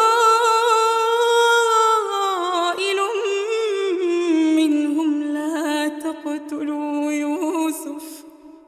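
A woman reciting the Quran in melodic tajweed chant, drawing out long ornamented vowels whose pitch steps down twice. Her voice stops near the end and trails off in reverb.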